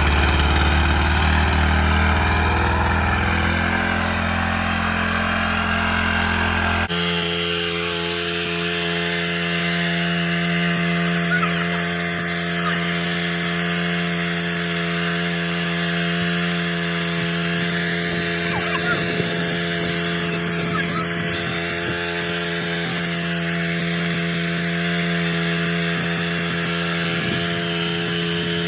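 Small gas engine of a Craftsman professional-series pressure washer running steadily just after starting. About seven seconds in, the sound switches abruptly to a steady, higher-pitched engine hum that holds to the end.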